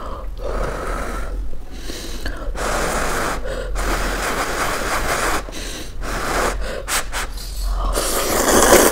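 A person slurping soupy instant noodles off a fork in a series of airy, hissing slurps with short breaks between them, the loudest near the end.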